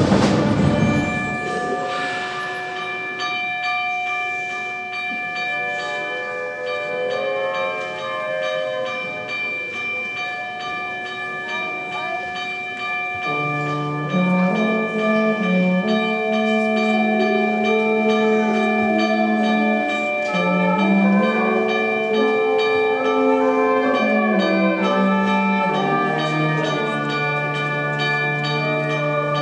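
High-school concert band playing a slow passage: a loud full chord at the start fades into long held high notes. About halfway through, a louder, lower melody line comes in beneath them.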